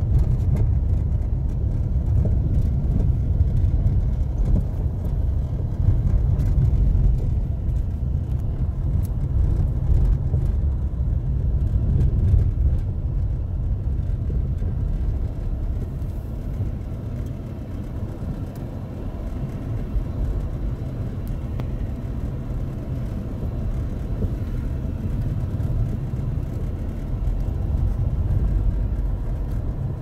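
Car driving slowly over a rough, potholed dirt road, heard from inside the cabin: a steady low rumble of engine and tyres.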